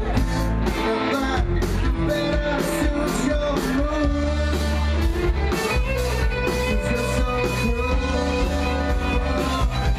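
Live rock band playing electric guitars over a drum kit keeping a steady beat.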